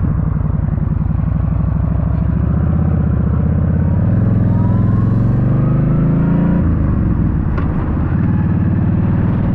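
Motorcycle engine running under way. Its pitch climbs for a couple of seconds as it accelerates, then drops suddenly at an upshift about two-thirds of the way through, and it pulls steadily again.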